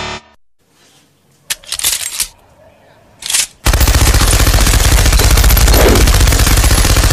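Machine gun firing one long, continuous burst of rapid automatic fire, starting a little past halfway through. Two brief sounds come before it.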